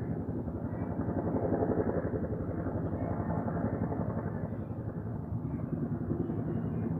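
Low-flying helicopter: a steady, rapid chop of the rotor blades, easing a little past the middle and building again near the end.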